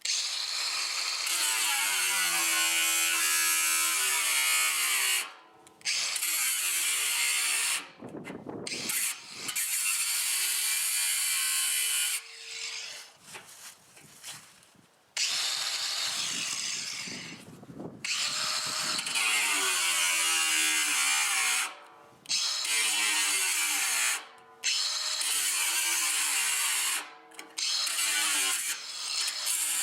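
Ryobi 18V ONE+ 4-1/2 in. cordless angle grinder with a cutoff wheel cutting into a steel drum. It runs in stretches of a few seconds with brief stops, and its whine shifts in pitch as the wheel is loaded in the metal.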